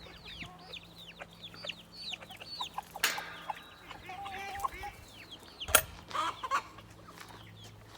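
Chickens clucking, with many short high falling calls, and a sharp knock about three seconds in and a louder one near six seconds.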